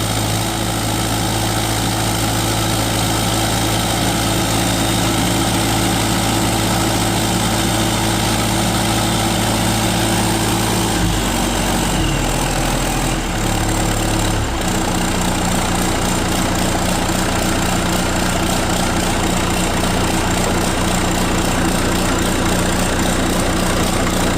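John Deere 450C dozer's diesel engine running steadily on its first run after reassembly. About halfway through its speed changes over a few seconds, then it settles and runs steady again.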